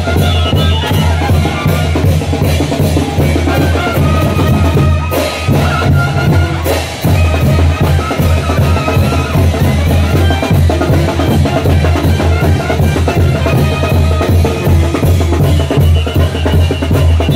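Mexican brass band playing chinelo brinco dance music: bass drum, snare and crashing hand cymbals keep a fast, steady beat under the brass.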